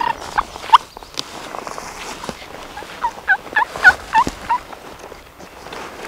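Turkey calling: a few short notes, then about a second and a half in a quick run of about seven notes that swing up and down in pitch.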